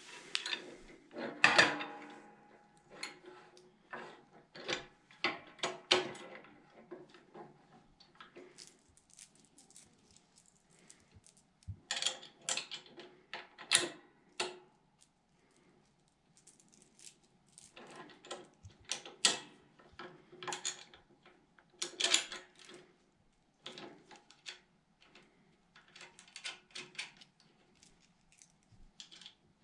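Small metal hardware, bolts, nuts and washers, clinking and tapping against metal parts as a handle is bolted onto its mounting plate by hand. The clicks come irregularly in clusters with short pauses, some with a faint metallic ring.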